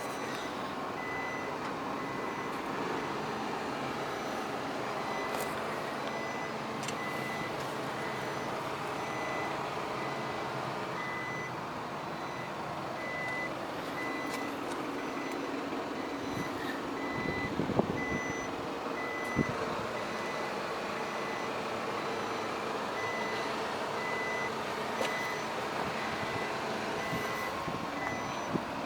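Isuzu Elf garbage packer truck running, with its warning beeper sounding a high beep that repeats evenly over the steady engine noise. A few short knocks come a little past halfway.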